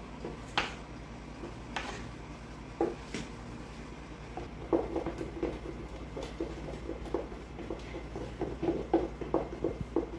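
Wooden spoon stirring cake batter in a stainless steel mixing bowl: a few scattered clicks at first, then from about halfway a run of quick knocks, about three a second, as the spoon beats the batter against the side of the bowl.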